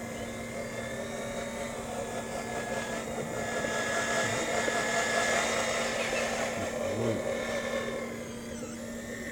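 Hydraulic pump of a radio-controlled model Cat 5110B excavator whining steadily as the machine digs and swings, getting louder in the middle and easing off near the end.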